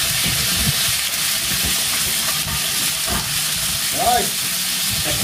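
Chicken pieces frying in hot oil in a cast iron wok, a steady sizzle, with scattered knocks and scrapes of utensils against the pans.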